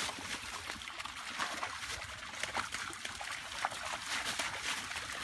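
Several dogs wading and splashing through a shallow creek, their paws sloshing in the water in a run of small, irregular splashes.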